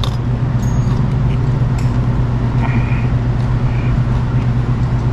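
A steady low hum runs throughout, with a few faint clicks in the first couple of seconds as a ring wrench works at the clutch cross-shaft return spring on a VW transaxle.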